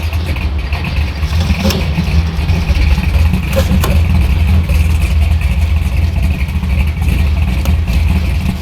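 Car driving, with a steady low rumble of road and engine noise.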